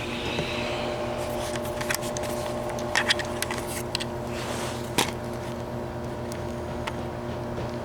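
A steady motor hum, with scattered sharp clicks and knocks, the loudest about three seconds and five seconds in.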